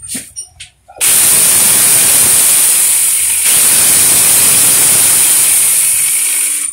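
Angle grinder converted into a small chainsaw, switched on about a second in and running at full speed in the air as a first test after assembly: a loud, steady rush with a high whine. It is switched off just before the end and cuts off suddenly.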